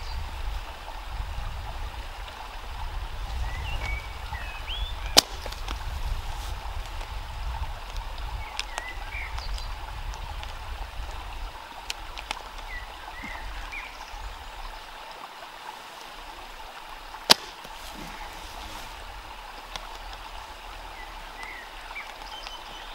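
Two sharp cracks from slingshot shots, one about five seconds in and another about seventeen seconds in, over a steady background of running water. Faint short chirps come and go, and a low rumble sits under the first half.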